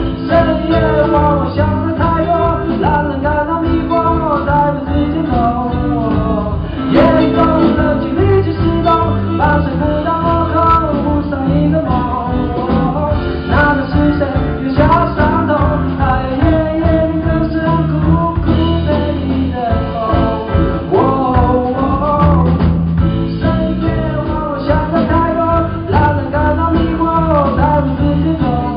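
Live band music: a man singing a slow Mandarin pop song over guitar-led accompaniment with bass.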